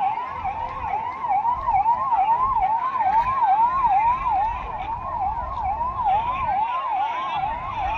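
Vehicle siren sounding a fast yelp, its pitch sweeping up and down about three times a second without a break.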